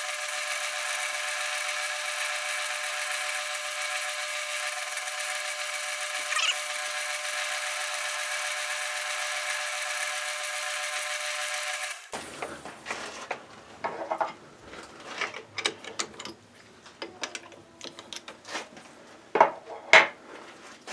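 South Bend lathe running, its tool cutting a flat on the side of a T-nut held in the four-jaw chuck: a steady high-pitched whine of the drive and the cut, with one short squeal about six seconds in. It cuts off suddenly about twelve seconds in, followed by scattered light clicks and metal knocks, the sharpest two near the end.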